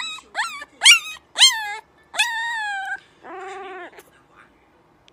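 Young husky-type puppy howling: four short yelping calls that shoot up in pitch and drop, then a longer falling howl and a lower, wavering one that ends about four seconds in.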